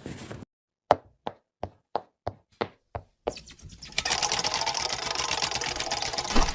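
A run of eight sharp clicks, about three a second, each dying away quickly, followed about a second later by a fast, dense, continuous clatter of clicks.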